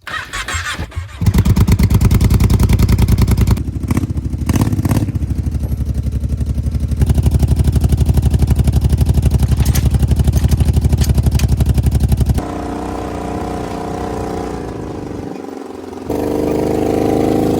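ATV engine running with a fast, even pulsing note, revved up at times; about twelve seconds in the sound changes to a steadier, higher-pitched running that grows louder near the end.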